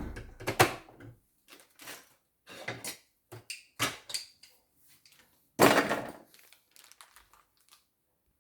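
Irregular clicks, knocks and short scrapes of an embroidery hoop and fabric being handled and fitted by hand. The loudest are a sharp knock about half a second in and a longer scrape ending in a knock about five and a half seconds in.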